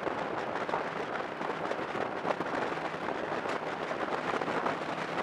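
Steady road and wind noise from a car travelling at highway speed, an even rushing hiss with no engine note standing out.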